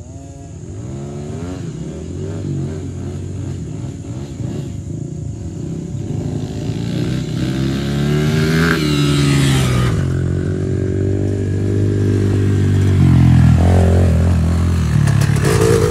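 Small youth dirt bike engine revving as the bike rides toward and past close by, getting louder. Its pitch climbs in several rises through the first half, then drops a little over halfway in and runs on at a steadier pitch.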